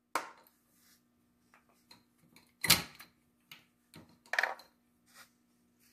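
Three sharp clunks with smaller knocks and ticks between, the loudest about two and a half seconds in, from a milling machine used as a hole punch and cardboard tubes handled on its metal tray, over a faint steady hum.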